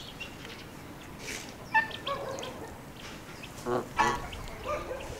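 Farmyard poultry calling: several short honking calls, the loudest about two seconds in and again about four seconds in.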